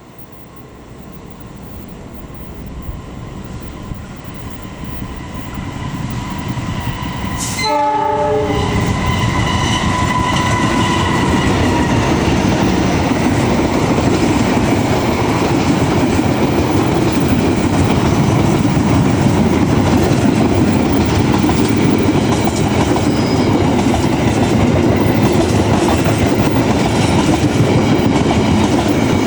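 KA Taksaka express train approaching and growing steadily louder, then a short horn as the locomotive reaches the microphone about eight seconds in. The train then passes close by with a loud, steady rumble of wheels on rails and clickety-clack.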